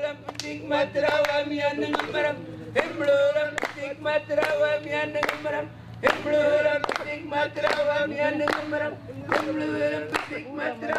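A group of voices singing with long held notes over steady rhythmic clapping, a few claps a second.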